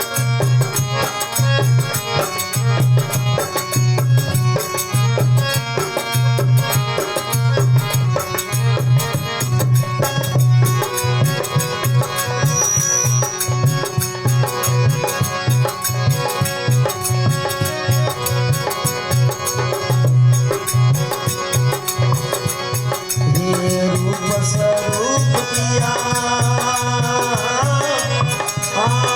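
Instrumental interlude of a devotional folk bhajan: a hand drum keeps a steady, evenly spaced low beat under sustained melodic instrument lines, with sliding pitches near the end.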